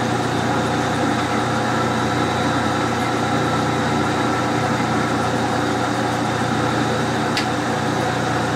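Metal lathe running at a steady hum while a countersink in the tailstock drill chuck cuts a chamfer into the hole of the spinning steel part.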